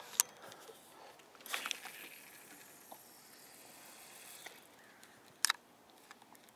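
Faint handling noises of a spinning rod and reel: a sharp click just after the start, a short rustle, and a quick double knock near the end.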